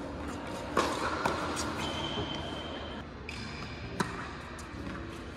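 Tennis balls struck by rackets: a loud hit about a second in, another just after, and a sharp crack of a serve about four seconds in. Between the hits come a few short high squeaks from shoes on the hard court.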